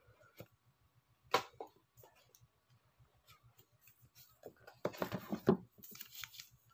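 Unboxing handling of a cardboard smartphone box: a sharp tap about a second in, then, near the end, about a second of crinkling and rustling as the phone in its plastic sleeve is lifted out.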